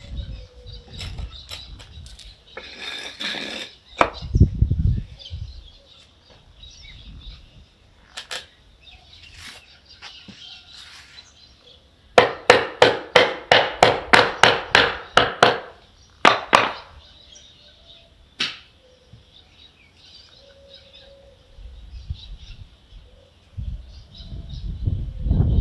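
Hammer blows on a new wooden door step: a quick, even run of about a dozen strikes about halfway through, then a couple of single knocks, with some duller thumps from handling the timber.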